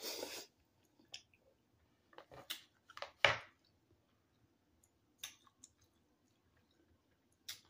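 A person slurping in a forkful of instant noodles, then chewing with scattered wet mouth clicks and smacks, the sharpest a little over three seconds in.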